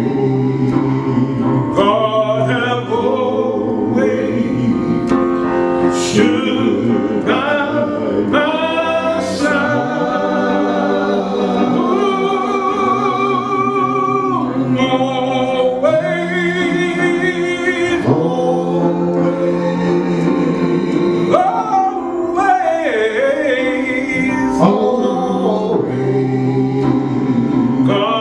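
Gospel song: a man singing long, drawn-out held phrases over a steady sustained instrumental accompaniment.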